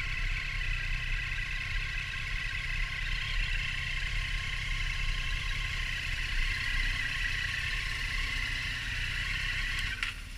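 Triumph Street Triple R motorcycle's inline-three engine running steadily while riding, with road and wind noise. The sound drops away just before the end.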